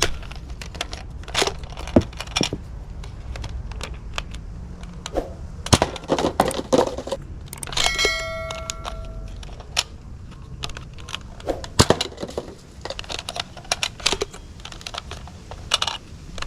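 Irregular clicks and knocks of hard objects being handled, with one short ringing ding about eight seconds in.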